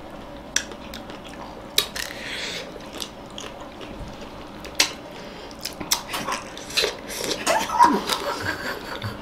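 People biting, sucking and chewing chocolate-coated ice-cream bars and kulfi on sticks: scattered sharp clicks and mouth sounds, with a brief murmured voice near the end.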